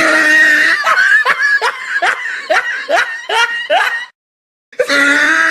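High-pitched laughing sound effect: a run of short, rising, squeaky giggles at about three a second. It cuts off a little past four seconds in and starts over after a brief silence.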